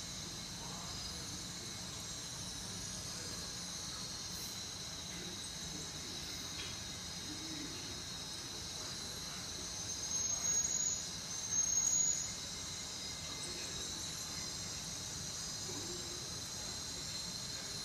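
Steady, high-pitched chorus of chirping insects, with two short, louder high squeaks about ten and twelve seconds in.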